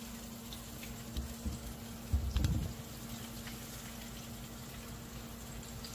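Oil sizzling steadily as floured corn on the cob fries in a skillet, with a low thump about two seconds in.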